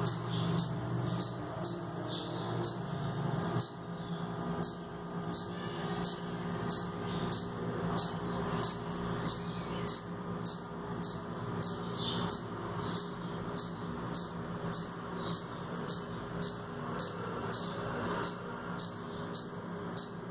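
A cricket chirping: short, high chirps repeating evenly, about two a second, made by rubbing its wings together.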